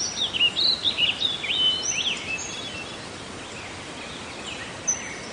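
Birds chirping over a steady hiss of outdoor background noise; the chirps come in the first two and a half seconds, then only the hiss goes on, a little quieter.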